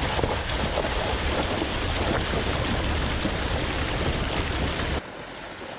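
A Mercedes Sprinter van's front tyre ploughing through a muddy puddle, water spraying and churning in a steady loud rush. The rush drops suddenly to a quieter level about five seconds in.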